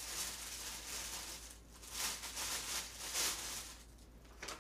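Plastic packaging rustling as it is handled, in two long swells that ease off near the end.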